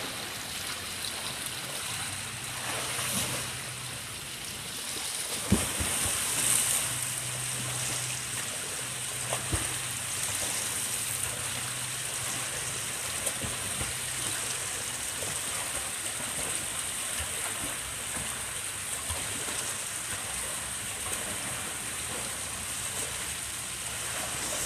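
Water splashing and churning from a swimmer's front-crawl arm strokes and kicks, steady throughout, over a faint low hum, with a couple of sharp knocks about five and nine seconds in.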